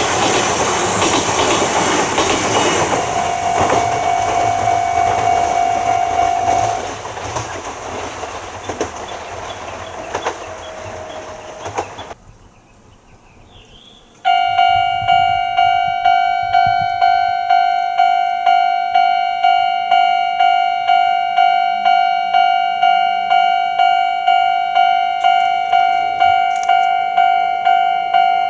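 Kintetsu train rumbling and clattering over a level crossing, fading away. About halfway through it cuts off, and after a short lull a Japanese level-crossing alarm starts: a steady electronic bell tone repeating a little under twice a second.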